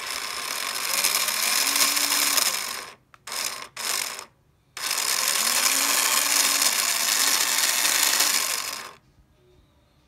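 Small electric motor in a model outboard motor whirring as it spins the propeller, with gear noise. It runs twice for several seconds with two short blips between, each run speeding up and then slowing down.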